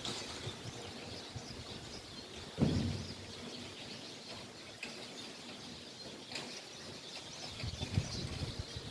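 Several birds chirping and calling, faint and mixed together. A sudden low thump comes about two and a half seconds in, and a low rumble begins to build near the end.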